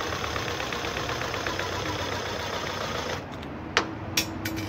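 Cordless drill driving a self-drilling screw through a thin sheet-metal strip, the motor whirring steadily for about three seconds and then stopping. A few light clicks follow near the end.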